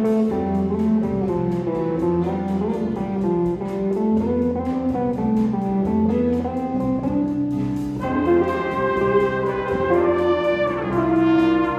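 A school band playing a slow piece: held brass chords and moving melody lines over a bass line that repeats about every two seconds.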